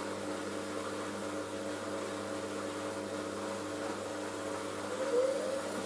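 Washing machine running steadily as it tries to balance the load before its final spin: a steady motor hum, with a faint rising tone near the end as the drum begins to pick up speed.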